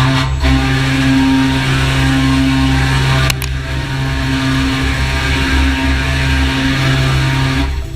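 Door machining center running: a steady spindle whine with a dense cutting noise over a low hum, and one sharp click a little over three seconds in.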